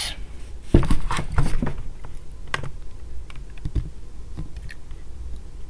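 Typing on a computer keyboard: irregular keystroke clicks, a quick cluster about a second in, then sparser taps.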